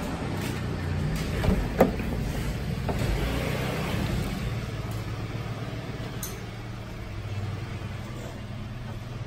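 Peugeot 206 engine idling as a steady low hum, with a sharp click or two about two seconds in as the driver's door is opened.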